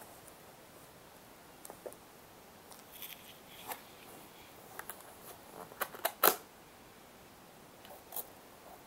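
Long fingernails tapping and scratching on a printed cardboard box: scattered light taps and scrapes, with a quick run of louder sharp clicks about six seconds in.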